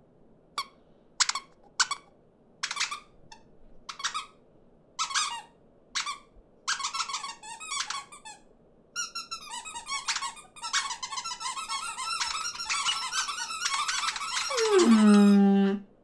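Foley squeaks and chirps voicing small cartoon birds: single short squeaks every half-second to second, which build into a dense overlapping chatter of many birds. Near the end a longer call falls steeply in pitch.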